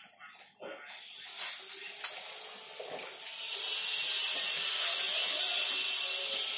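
Jackfruit pieces and water tipped from a plastic bowl into a metal pot on the stove. A couple of light knocks come first, then a steady hissing splash starts about halfway through.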